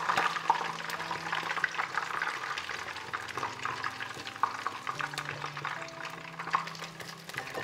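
Chicken pieces frying in hot oil, a dense crackle of spattering pops that gradually eases.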